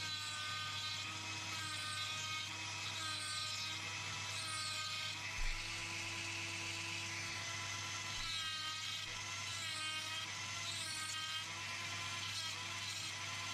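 Small handheld rotary tool with a cut-off disc whining steadily as it cuts into a capacitor's bakelite tube, its pitch dipping again and again as the disc bites in and under load. A short low knock about five and a half seconds in.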